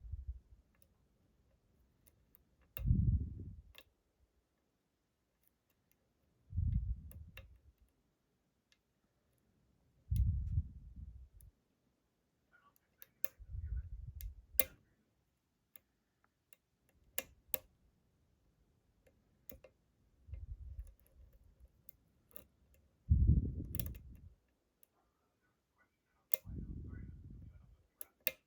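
Scattered small, sharp metal clicks and ticks from a lock pick working the pins of the Hippie No.3 challenge lock, a pin-tumbler euro cylinder, with a tension tool in the keyway. Soft low swells recur every three to four seconds underneath the clicks.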